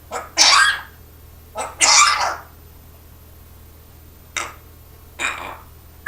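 Parrot imitating a human cough: two loud hacking coughs in the first two and a half seconds, then two softer ones a few seconds later.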